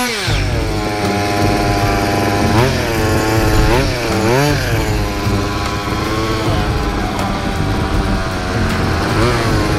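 Triumph Street Triple 675 motorcycle engine, an inline three-cylinder, dropping from a steady high-revving whine to a rough idle right at the start. It is then blipped on the throttle a few times, each a quick rise and fall in pitch, with a cluster of blips near the end.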